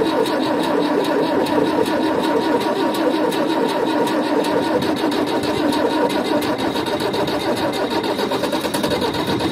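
Fiat 640 tractor's four-cylinder diesel engine running steadily with a fast, even diesel clatter, just after a cold start at about −18 to −20 °C.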